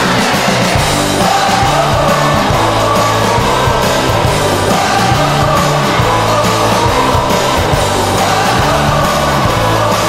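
Ice hockey goal song: loud rock music with guitar and singing, played as the goal celebration track.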